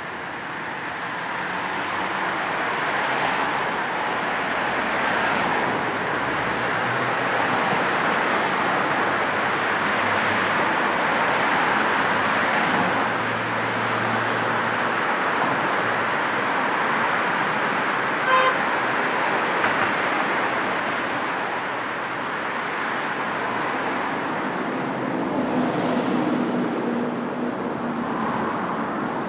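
Steady road traffic: cars passing in a continuous wash of tyre and engine noise that swells and eases, with a single short car-horn toot about two-thirds of the way through.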